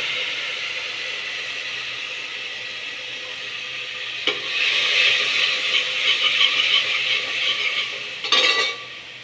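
Hot mustard oil spitting and sizzling in an aluminium pot just after a little water and turmeric are poured in, a steady hiss that slowly dies down. From about four seconds in, a metal ladle stirs and scrapes against the pot's sides and bottom.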